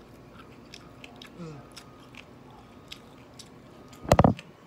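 A person chewing a mouthful of rice and fried pork ribs, with faint small wet clicks of the mouth. About four seconds in, a sudden loud thump.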